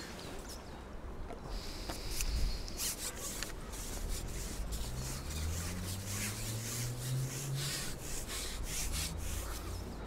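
Carbon fishing pole being slid out by hand, a run of rubbing and scraping strokes as the sections move, with a faint low hum rising in pitch around the middle.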